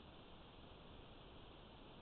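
Near silence: a steady faint hiss.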